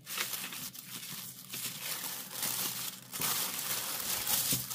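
White tissue paper rustling and crinkling as a small package wrapped in it is unfolded by hand, in uneven waves of louder crinkling.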